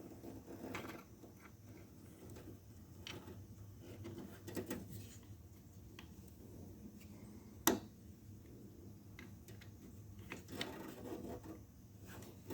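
Faint handling noises of car trunk latch parts and tools: light rubbing and small knocks, with one sharp click a little past halfway.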